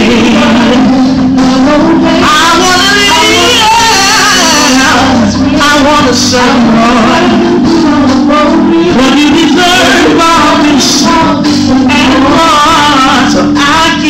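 Live gospel worship music: a woman sings lead into a microphone, with backing singers, over a church band of keyboard and drums.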